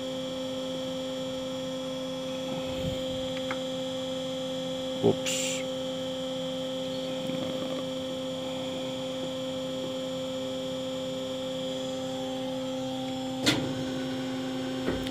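Steady electrical hum of a powered-up CNC lathe standing at idle, with a sharp click about five seconds in and another near the end.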